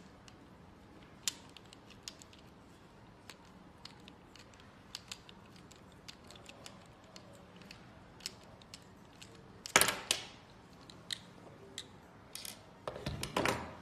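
Small scattered clicks of a screwdriver turning a screw out of a plastic camera ball head, then a louder clatter about ten seconds in and again near the end as the loosened ball-head parts come apart and knock on the wooden table.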